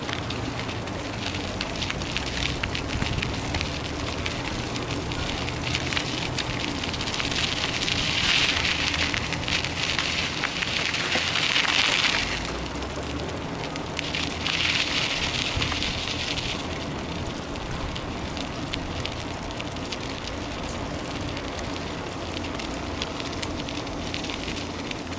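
Steady rushing, crackly noise of moving along a gravel-strewn road, likely tyre noise and wind on the microphone. A higher hissing buzz swells up twice near the middle.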